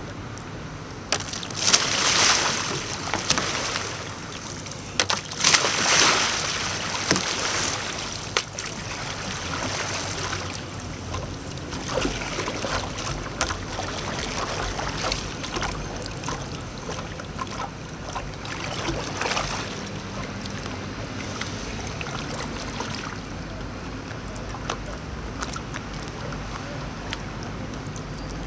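Water splashing around a sea kayak being rolled, with two loud churning splashes about two and six seconds in, then lighter paddle splashes and lapping water.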